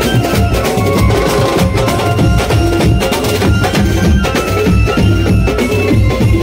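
Banjo party street band playing: fast, dense drumming with a melody line held over it.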